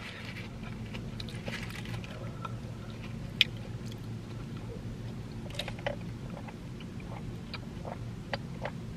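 Close-up mouth sounds of chewing food, then sipping a fountain drink through a straw, with small wet clicks over a steady low hum.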